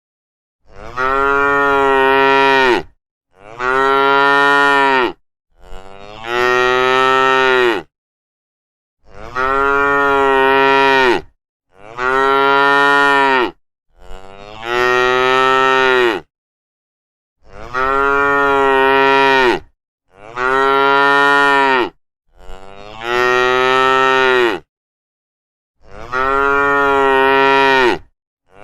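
Cattle mooing: about ten long moos of roughly two seconds each, separated by silent gaps.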